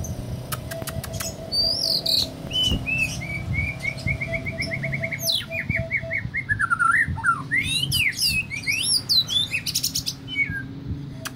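White-rumped shama (murai batu) singing a varied, canary-like song: a fast trill of repeated notes, then falling notes and quick rising and falling whistled sweeps.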